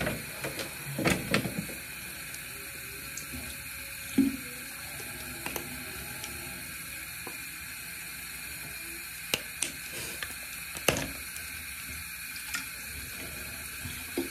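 Bathroom sink tap running steadily, with a few short clicks and knocks scattered through it.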